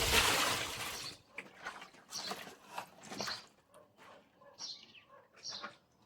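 Chickens giving short, high calls, five or six spread over a few seconds, after a brief rush of noise in the first second.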